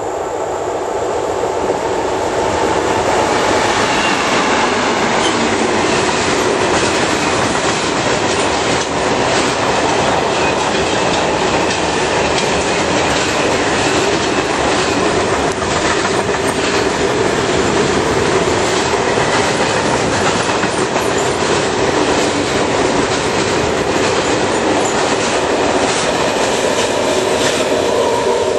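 Long freight train hauled by a DV12 diesel locomotive passing close by: the noise swells over the first few seconds as the locomotive comes up. After that comes a steady rumble of wagon wheels on the rails, with a run of clicks over the rail joints.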